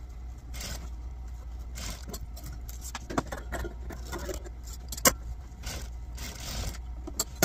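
Industrial sewing machine stitching in short spurts as gathered tulle is fed under the presser foot, over a low steady hum, with fabric rustling and a few sharp clicks, the loudest about five seconds in.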